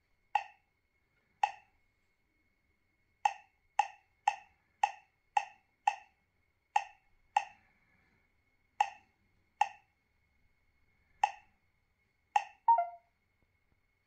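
Key-press beeps of a touch-screen GPS navigator, one short identical electronic click for each tap on the screen, about fourteen at uneven intervals with a quick run of them in the middle. Near the end comes a slightly longer, different tone.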